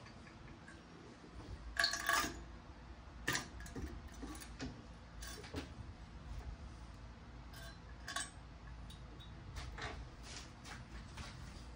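Steel wire cup brush in a drill press working the rusty sheet-steel pan: scattered short metallic scrapes and clinks, the loudest about two seconds in, over a steady low hum.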